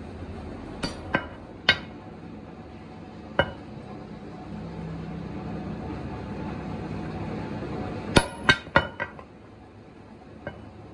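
Sharp metal-on-metal strikes on steel parts: a few scattered blows, then a quick run of about five near the end, one leaving a brief high ring. A low steady machine hum runs underneath.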